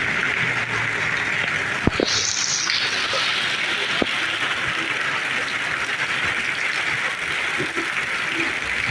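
Heavy rain pouring steadily, with a couple of sharp taps from drops striking a hard surface.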